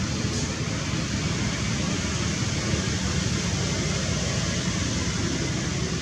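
Steady rushing outdoor background noise with a low rumble, unchanging throughout; no monkey calls stand out.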